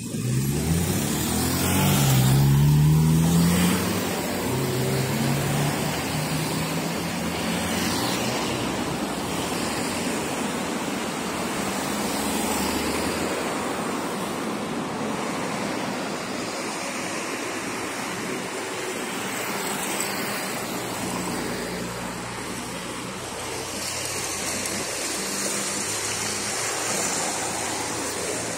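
City street traffic: a vehicle's engine accelerating, its pitch rising over the first few seconds, then a steady rush of passing traffic.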